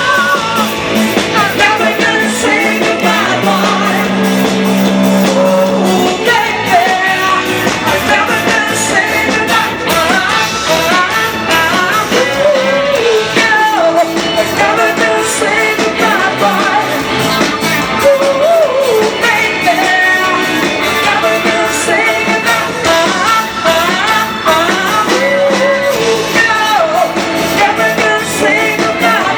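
Live band playing pop-rock music with a singer.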